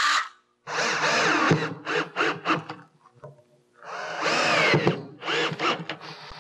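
Power drill run in short trigger bursts, its motor speeding up and slowing down, first drilling 1/8-inch pilot holes into a wooden header bow, then driving a screw through a metal header mount into it. There are two longer runs, about a second in and about four seconds in, each followed by a few quick blips.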